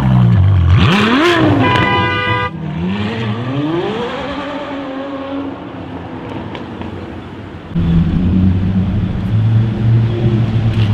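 Ferrari F12berlinetta's V12 with a Capristo exhaust revving and accelerating away, its pitch rising, with a short horn blast about two seconds in. Near the end it gives way to another car's engine running with a steady low drone.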